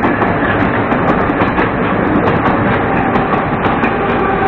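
Moscow Metro 81-740.4 "Rusich" articulated train running into the station, a steady rumble with wheels clicking over rail joints. A steady whine comes in near the end.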